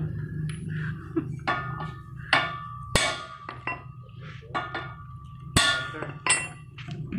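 Hammer blows on the steel driveshaft yoke of a truck during a cross-joint (universal joint) replacement, seating the new cross joint and its retaining clip. About eight irregular strikes, each ringing briefly like struck metal, the loudest about three and five and a half seconds in.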